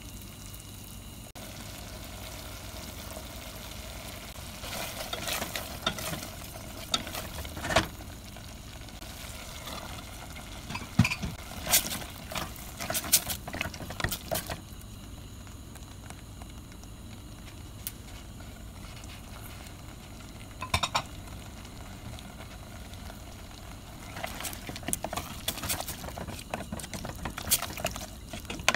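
Wooden spoon stirring chicken pieces in tomato sauce in a stainless steel pot, knocking and scraping against the pot in several spells, over a steady low sizzle of frying.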